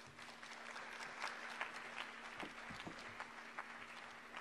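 Audience applauding, a dense patter of many hand claps that swells about half a second in and thins out toward the end, over a faint steady hum.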